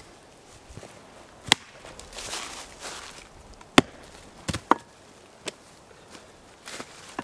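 A blade chopping into wood: about five sharp strikes spaced irregularly, the loudest a few seconds in, with softer handling noise between.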